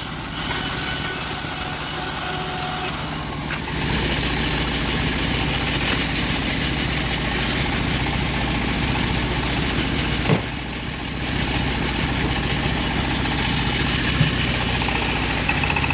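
Engine of a homemade bandsaw mill running steadily. It gets a little louder about four seconds in, and there is a single sharp knock past the middle.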